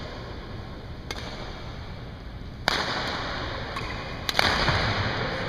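Badminton rackets hitting a shuttlecock in a rally: a few sharp smacks echoing in a gym hall, the loudest a little past four seconds in.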